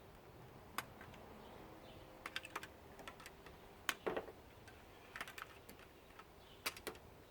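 Faint, scattered clicks and taps from a steam iron's plastic housing being handled and pried apart, coming a few at a time every second or so.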